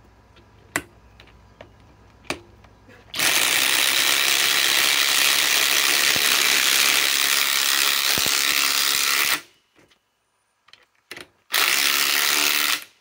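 Cordless impact wrench hammering under the trigger: a long run of about six seconds, then a second short burst of about a second near the end, with a couple of sharp clicks before the first run.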